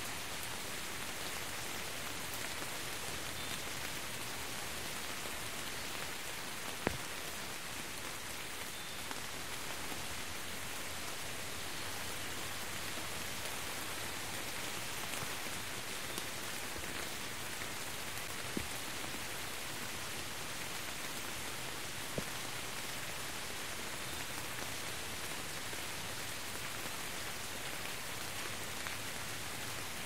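Steady rain, an even hiss, with three sharper single drop impacts standing out: one about a quarter of the way in and two more about two-thirds of the way through.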